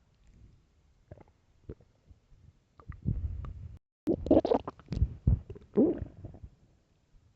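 A hungry, empty human stomach growling. First come a few faint gurgles and a low rumble about three seconds in. From about four seconds in there is a loud run of bubbly gurgles with squeaky, gliding pitches, which dies away near the end.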